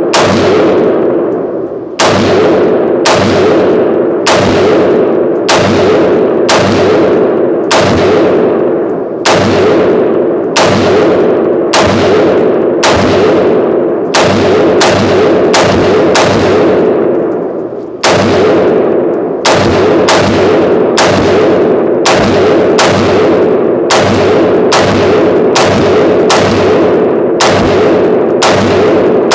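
Bear Creek Arsenal BC-15 AR-15 rifle fired semi-automatically in steady rapid fire, about one shot a second and a little quicker later on, some thirty shots in all. Each sharp report rings out in the reverberation of an indoor shooting range.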